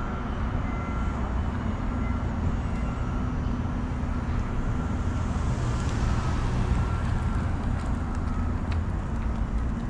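Street traffic: a steady rumble of cars, with one vehicle passing close about five to seven seconds in. Through it runs a short electronic beep, repeating about once a second.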